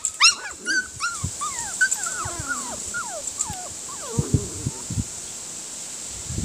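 Puppies whimpering and yipping: a quick run of short high whines in the first few seconds, thinning out, with a few more around four seconds in.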